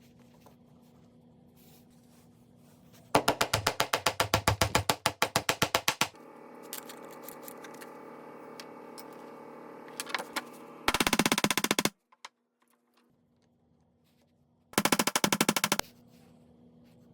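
Three bursts of rapid, evenly spaced mechanical impacts at about eight a second. The first lasts about three seconds, and the later two about a second each. Between the first and second burst a quieter steady sound with several pitches runs for about four seconds.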